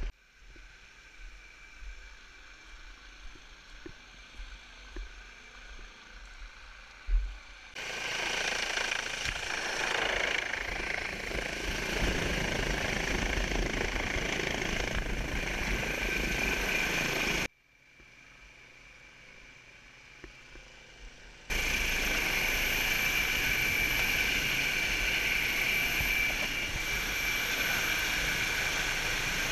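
A rescue helicopter hovering close overhead: loud, steady turbine and rotor noise with a high whine, heard through a helmet camera in the rotor wash. It starts suddenly after several quieter seconds of low knocks, cuts off for a few seconds, and then comes back.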